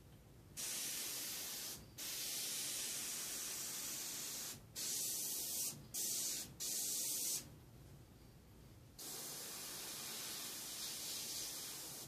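Airbrush spraying paint onto a T-shirt fabric, hissing on and off about six times, with short breaks between sprays and a longer spray near the end.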